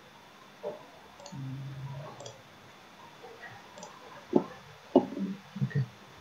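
Computer mouse clicking a few times, with two sharper clicks about four and five seconds in. A short low hum sounds about a second and a half in.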